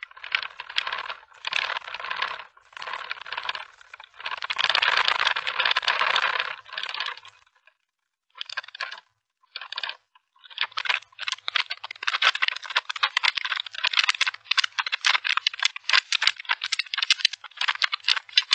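Rattling and clattering from the shaking of the magnitude 6.8 earthquake, picked up by a security camera's microphone: rough bursts of noise for the first seven seconds, then after a short gap a dense, fast rattle of clicks from about ten seconds in.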